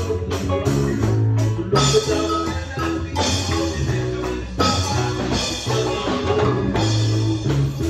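A small band playing live: a bass line moving in steady low notes under drum kit and hand percussion, with wood blocks struck with a stick.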